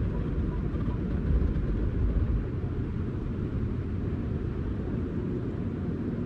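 Automatic car wash spraying water and foam over a car, heard from inside the closed cabin as a steady, mostly low-pitched noise that swells briefly between about one and two and a half seconds in.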